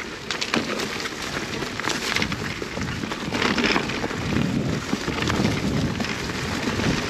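Electric mountain bike riding down a steep dirt trail: tyres crunching over dirt and roots, with irregular rattles and knocks from the bike throughout. A creek can be heard underneath.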